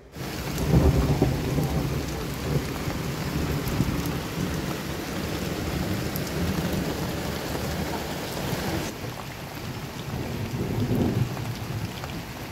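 Steady heavy rain falling, with thunder rumbling loudest about a second in and again late on.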